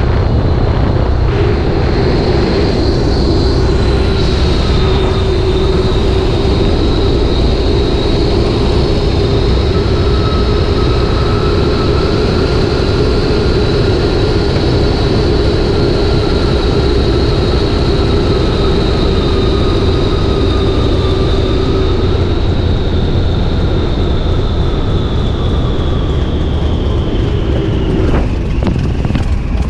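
Tiger Moth biplane's piston engine and propeller running steadily, a constant drone with a slight sag in pitch near the end.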